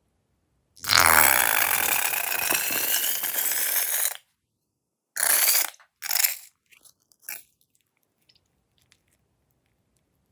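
Crunchy slime being squeezed and pressed, crackling continuously for about three seconds, then two short crunches and a few faint clicks.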